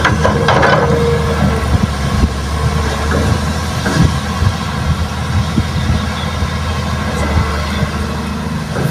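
Diesel engines running steadily: a hydraulic excavator working its boom and swinging its empty bucket, with a Mitsubishi Fuso dump truck idling as it is loaded with soil. A few light knocks around two and four seconds in.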